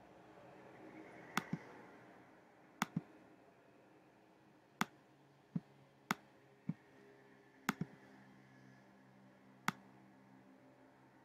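Computer mouse clicks, sharp and irregularly spaced, about a dozen of them, several in quick pairs, over a faint steady room hum.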